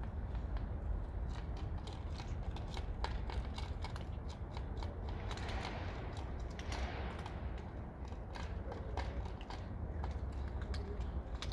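Cats eating: a quick, irregular run of small clicks from their feeding over a steady low rumble.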